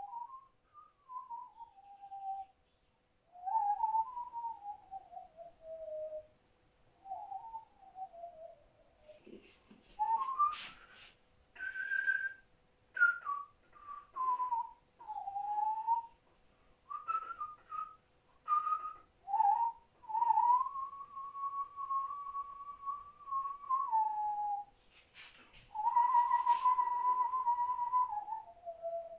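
A person whistling a slow, wandering tune: long falling glides at first, then shorter notes and two long held tones near the end. A few sharp clicks fall in the middle and near the end.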